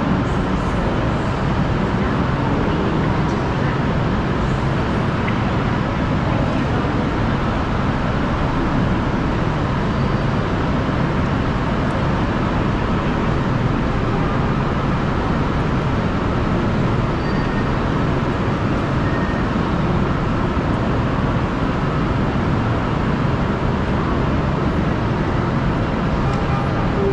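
Steady vehicle and traffic noise: an even rumble with no single event standing out.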